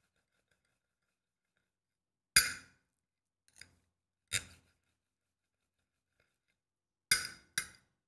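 Five short, sharp clicks at uneven intervals, the last two close together, with dead silence between them.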